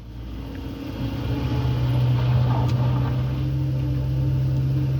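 CAT skid steer loader's diesel engine throttling up over the first second, then running steadily at high revs.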